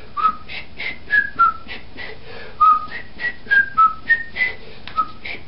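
A tune whistled in short, high notes, set against a steady clicking beat of about three to four ticks a second.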